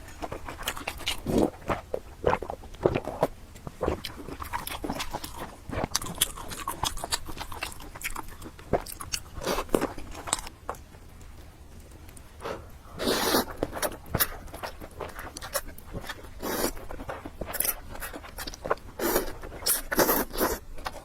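A person chewing and biting food, heard up close: an irregular run of short mouth clicks and smacks throughout, with a few longer, noisier bursts about two-thirds of the way in and near the end.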